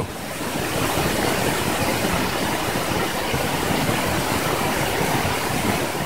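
Steady rushing noise of open river water flowing around a spinning ice disc.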